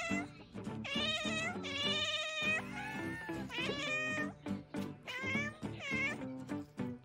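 Domestic cat yowling: about six long, wavering meows one after another, with background music under them.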